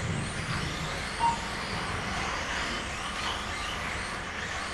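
Kyosho Mini-Z 1:28-scale electric RC cars racing, their small motors whining high and rising and falling as they accelerate and brake. About a second in there is one short electronic beep from the lap counter as a car crosses the timing line.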